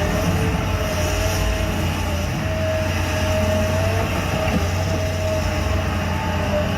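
A heavy machine's engine running steadily: a continuous low hum with a higher whine above it that wavers slightly in pitch.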